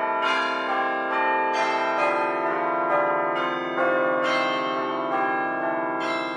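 Bell-like struck tones ringing one after another in a slow chime or bell melody, a new note every half second to a second, each note ringing on and overlapping the others. The sound begins to fade near the end.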